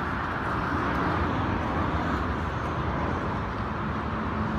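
Steady road traffic noise from a multi-lane road close by, with a low steady hum coming in near the end.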